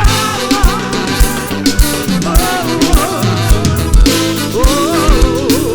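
Live band music from a forró show: an instrumental passage with a steady kick-drum beat a little under two beats a second under a wavering lead melody, with no sung lyrics.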